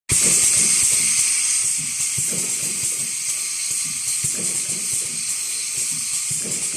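Wet wipes making and packaging machine running: a steady high hiss with irregular low clicks and knocks from its mechanism.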